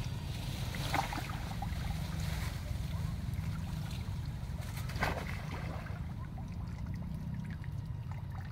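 Water splashing as macaques drop and move in a muddy pond: two short splashes, about a second in and a louder one about five seconds in, over a steady low rumble.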